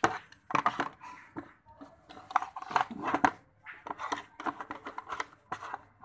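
Handling noise from a plastic GPON modem being picked up and turned over: a run of irregular clicks, knocks and rubbing from its casing.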